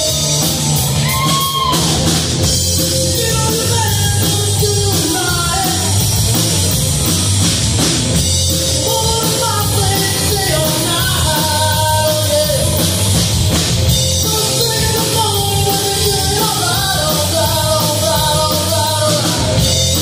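Live rock band playing loudly: a male singer over electric guitar, electric bass and drum kit.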